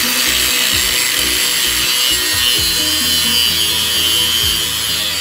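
Angle grinder grinding steel, a steady high-pitched grinding hiss. Background music plays underneath.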